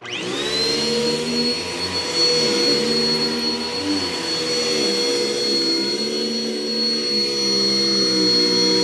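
Bissell CleanView upright vacuum cleaner switched on, its motor spinning up in under a second to a steady high whine and then running.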